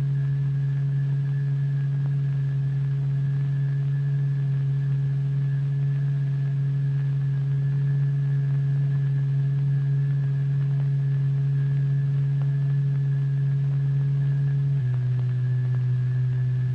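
Steady low electronic hum, the tone driving a cymatics vibration apparatus, with a faint higher whine above it. Near the end the hum steps down slightly in pitch.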